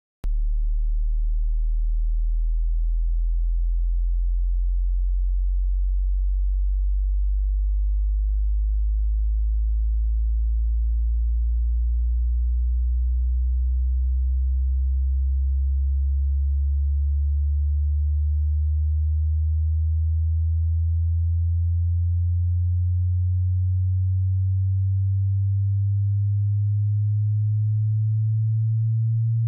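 Pure sine test tone of a hearing test or tinnitus pitch-matching sweep, gliding slowly upward in pitch from a very deep hum to a low hum at steady loudness. It comes in after a brief silence right at the start.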